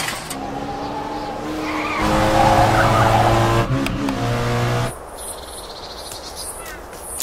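Car engine running hard with tyres squealing and skidding. The engine pitch jumps abruptly about two seconds in, and the sound drops to a quieter stretch about five seconds in.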